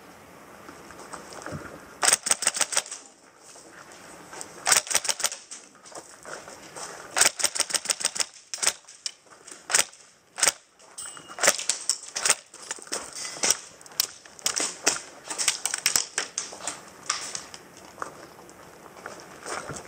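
Airsoft electric guns firing on full auto in short bursts of rapid clicks, repeated many times from about two seconds in.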